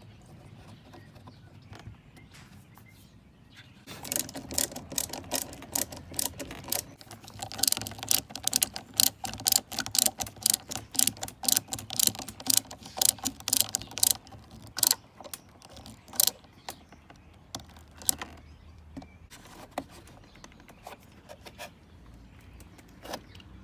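A screw being driven into a plastic push-pin rivet, tightened with a run of rapid ratcheting clicks. The clicks start about four seconds in, go on for about ten seconds with a steady hum under them, and then tail off into a few separate clicks.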